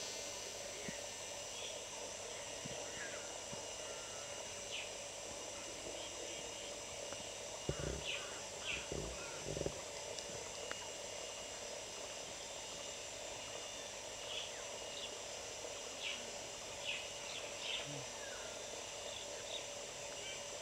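Wild outdoor ambience: scattered short bird chirps over a steady hiss, with a few low thumps about eight to ten seconds in.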